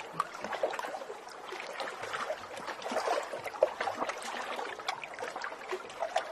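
A crowded mass of small fish flapping and splashing, a dense irregular run of wet slaps and splashes.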